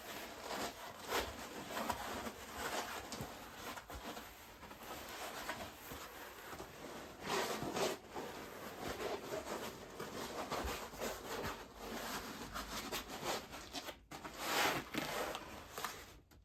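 A thin foam sleeping mat being rolled up and pushed into a backpack: irregular rubbing and rustling of foam against pack fabric, louder for a moment near the end.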